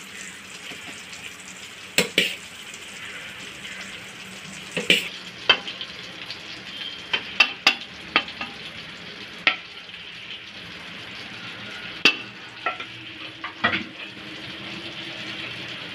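Hot oil sizzling steadily in a pan on the stove, with a metal spoon knocking and scraping against a metal cooking vessel about a dozen times as rice is spooned in.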